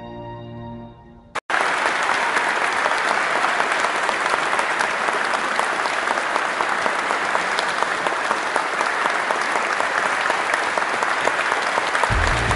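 A sustained closing chord from a string ensemble and choir fades out. After an abrupt cut about a second and a half in, an audience claps steadily and densely. Low-pitched music comes in near the end.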